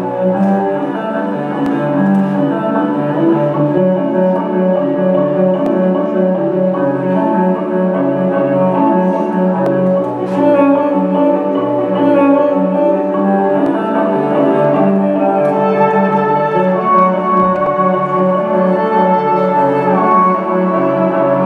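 Instrumental music with long held notes. Higher notes join in about three quarters of the way through.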